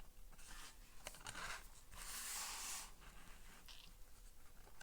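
Tarot cards sliding and brushing against one another as they are handled: a few faint, soft scraping swishes, the longest about two seconds in, with small taps.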